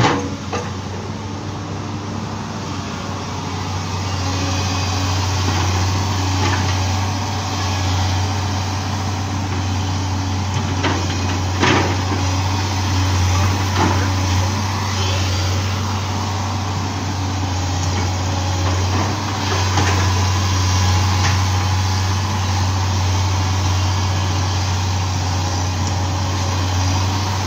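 Kobelco excavator's diesel engine running steadily with a low drone, with a few short knocks from the machine.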